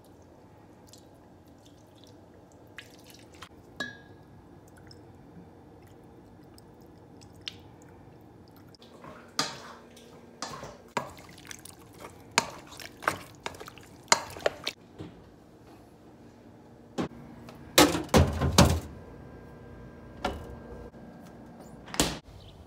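A spoon knocking and scraping against a stainless-steel bowl while chunks of beef are mixed with soy sauce: irregular sharp clinks starting about nine seconds in, loudest in a quick cluster near the end, over a faint steady hum.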